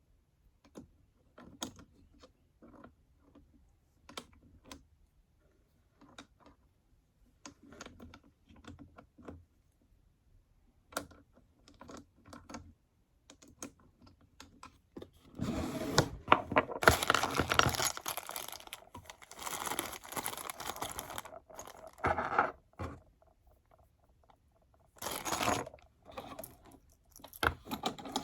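1895 hand-crank sewing machine: for the first half, scattered light clicks and knocks of handling. Then, about halfway, spells of fast clattering as the machine is cranked and stitches, stopping and starting several times.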